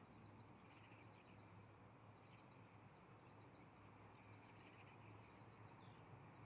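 Faint chirping of small birds: groups of three or four short, high notes repeating about once a second, over a steady low hum.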